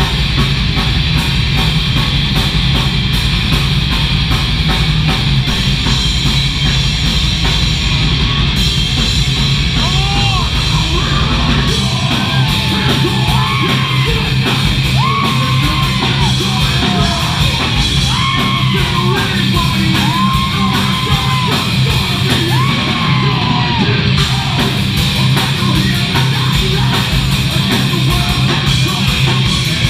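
Heavy metal band playing live at full volume: distorted electric guitars, bass and a drum kit. A vocalist shouts over it from about ten seconds in until a little past twenty seconds.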